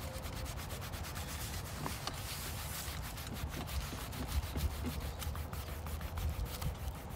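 Hands rubbing over the back of card stock pressed onto inked bubble wrap: a steady scratchy rubbing of skin on paper, dotted with many small clicks.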